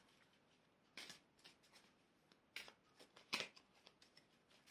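Soft rustles of angel oracle cards being shuffled and drawn: three short brushes about a second in, at about two and a half seconds and near three and a half seconds, over near silence.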